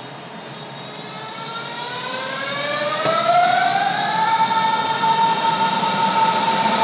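Berlin S-Bahn electric train pulling into an underground station, its drive giving a whine of several tones that climbs in pitch over about three seconds and then holds steady, growing louder as the train enters the platform.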